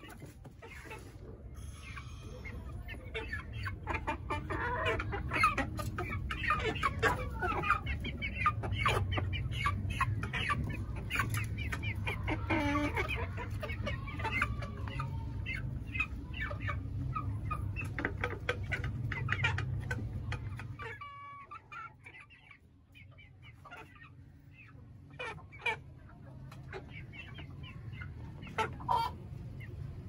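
Young Aseel chickens, about four months old, clucking with many short, overlapping calls over a low steady rumble. About two-thirds of the way through, the rumble stops and the calls thin out to a few scattered ones.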